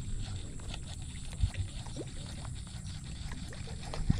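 Shimano SLX baitcasting reel being cranked on a lure retrieve, with faint clicking from the reel over a low rumble. A couple of short rising chirps come through, one about two seconds in and one near the end.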